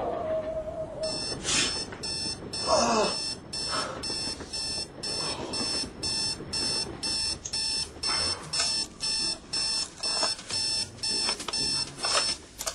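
Sony digital bedside alarm clock beeping at a steady rapid pace, about two high beeps a second, starting about a second in. A short sharp sound comes right at the start.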